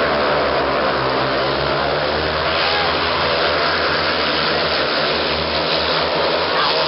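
Four speedway motorcycles racing around the shale track, their 500 cc single-cylinder engines running at high revs together as a steady, overlapping engine noise.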